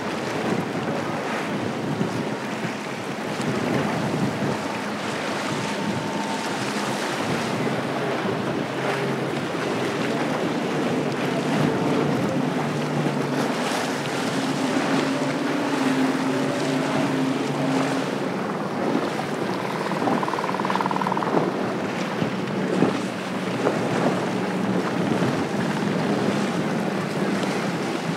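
Outboard motors of center console boats running at speed as several boats pass one after another, the engine note changing as each goes by. Water spray and waves under the hulls, with wind noise on the microphone.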